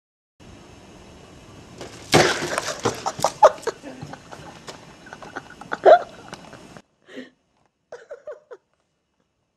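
A loud crack about two seconds in, then a run of sharp knocks and clatter over a steady hiss, with two more hard hits. Near the end come a few short voice sounds.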